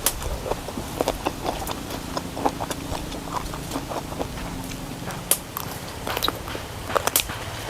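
Someone eating close to the microphone, chewing crunchy raw young eggplant: a run of irregular crisp clicks and crunches.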